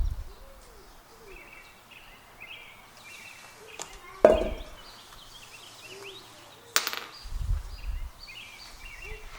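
Metal parts of an outboard's propeller and hub being handled as they come off the prop shaft: a clank about four seconds in and a sharp click near seven seconds, with low handling thumps after it. Birds chirp in the background.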